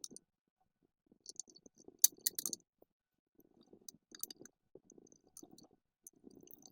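A cloth rag rubbing metal polish onto small soldered steel bike parts, in short scrubbing strokes. Small metal clicks and clinks come from the parts, loudest about two seconds in.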